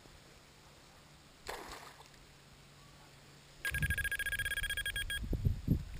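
Electronic carp bite alarm sounding a fast, unbroken string of high beeps for about a second and a half, starting about three and a half seconds in, with low knocks beneath it. A short rustle comes about a second and a half in.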